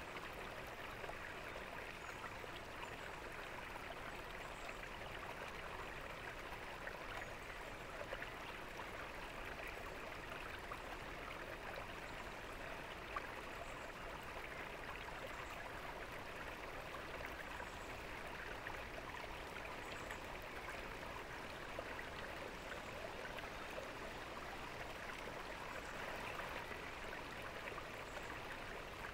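Water splashing steadily from a tiered garden fountain into its basin, an even unbroken trickling rush.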